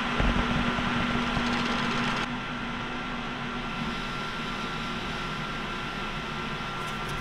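Metal lathe running, its chuck spinning a metal pin while the tool faces about 80 thou off the end. About two seconds in, the cutting hiss drops away and the lathe runs on with a steady hum.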